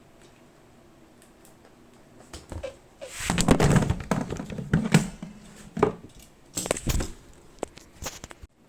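Packaging being handled and opened: a crinkling rustle, then several sharp knocks and clicks about 3 to 8 seconds in.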